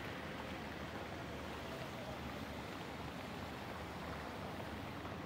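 Steady rushing of muddy floodwater flowing across a street.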